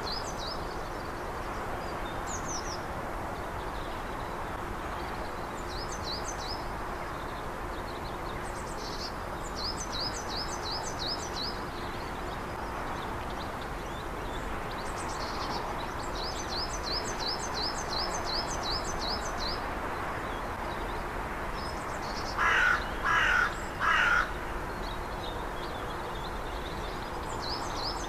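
A crow cawing three times in quick succession, the loudest sound, about four-fifths of the way through. A small bird sings repeated runs of quick high chirps over a steady background hiss.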